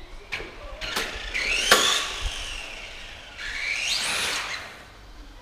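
Tamiya TB03-D radio-controlled car's electric motor whining up in pitch as the car accelerates, twice, with a few sharp clicks in the first couple of seconds.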